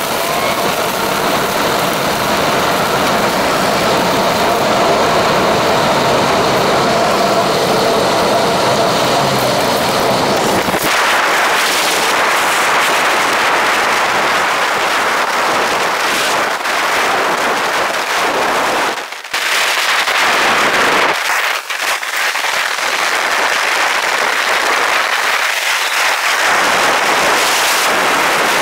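Loud rush of tornado wind buffeting the chase vehicle, with rain and debris crackling against it. About eleven seconds in the deep rumble drops away and it turns to a higher hiss, with two brief lulls later on.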